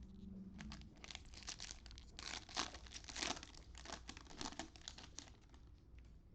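Cellophane wrapper of a trading-card cello pack crinkling and being torn open, a dense crackle that is loudest a little past the middle.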